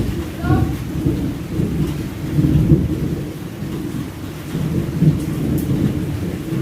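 Thunder rumbling and rolling over steady rain, the rumble swelling and easing repeatedly.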